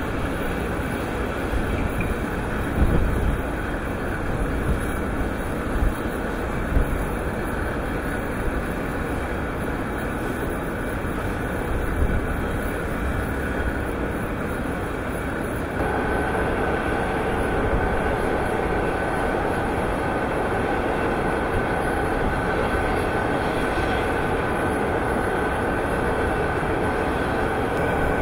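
Steady mechanical rumble and rattle of a bucket-wheel reclaimer and its conveyor working an iron ore stockpile, with a few low thumps in the first half. About halfway through the sound changes abruptly to a louder, steadier run with a thin whine.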